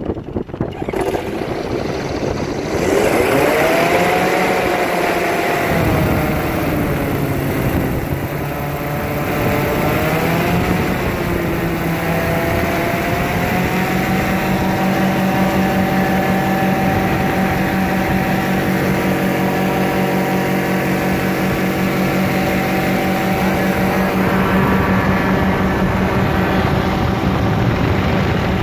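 Powered parachute's engine and propeller, first with rough wind noise, then throttled up about three seconds in. Its pitch rises and falls with the throttle, then it runs steadily at high power from about twelve seconds on, as for takeoff and climb after an engine-out practice glide.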